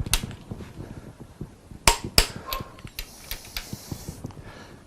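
Click-type torque wrench clicking as it reaches its set torque of about 70 foot-pounds on the MGB engine's crankshaft main bearing cap bolts. There are sharp metallic clicks, one at the start and two close together about two seconds in, with light tool handling between.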